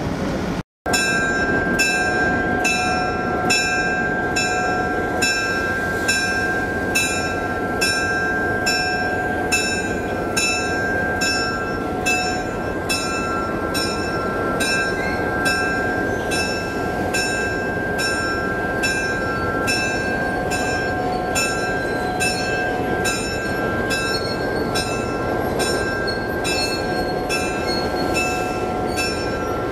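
Atlantic Coast Line E3A diesel locomotive running, its bell ringing steadily at about one and a half strikes a second.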